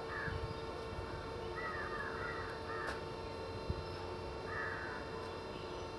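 Crows cawing outdoors: a caw right at the start, a quick run of about four caws around two seconds in, and another caw near five seconds.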